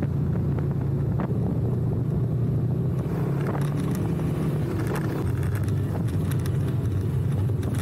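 Side-by-side UTV engine droning steadily under way over gravel and dirt, with tyre and wind noise. From about three seconds in, scattered clicks and rattles join the drone as the trail roughens.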